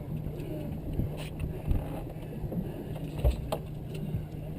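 Fishing boat's engine running with a steady low hum, with a few sharp knocks on top, the clearest a little over a second in and about three seconds in.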